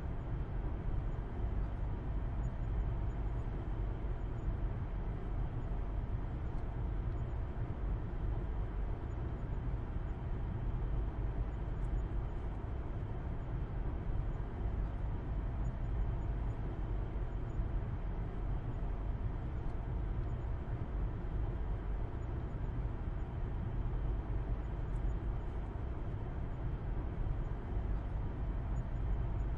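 Car driving at a steady speed: a low, even rumble of engine and road noise that does not change.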